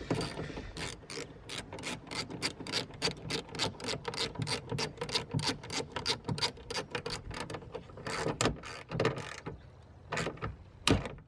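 Ratchet wrench with a 10 mm socket clicking steadily, about five clicks a second, as a taillight bolt is tightened on a Lexus IS300. The clicking stops about nine and a half seconds in, and one more sharp click comes near the end.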